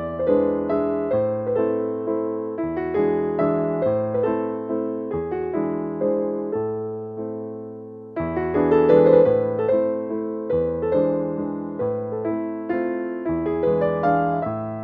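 Background piano music: struck notes that ring and fade over a low bass line, growing louder again a little past the middle.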